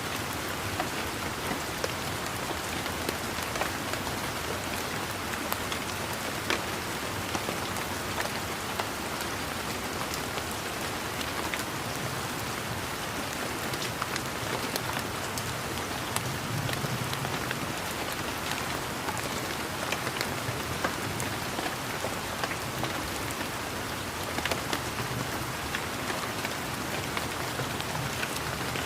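Steady rain falling, an even hiss with many individual raindrops ticking sharply through it.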